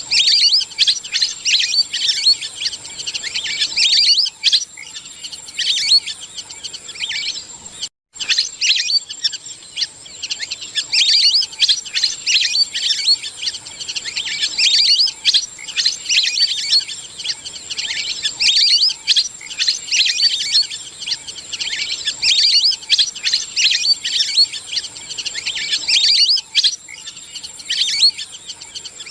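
Lesser whistling ducks calling as a flock: a dense, continuous twittering of short, high whistled notes, the calls that gather the flock, with a steady high tone underneath. The calling breaks off for an instant about eight seconds in.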